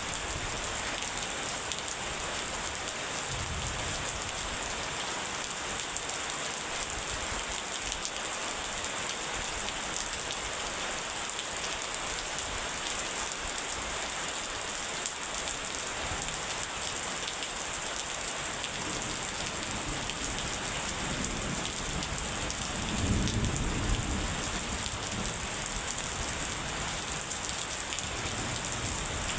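Steady heavy rain with distant thunder: a faint low rumble a few seconds in and a louder rumble about three-quarters of the way through.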